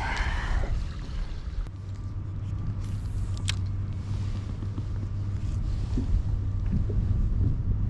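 Wind buffeting the microphone, heard as a steady low rumble, with one sharp click about three and a half seconds in.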